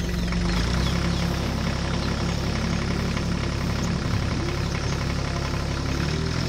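Sonalika GardenTrac DI 20 mini tractor's diesel engine idling steadily.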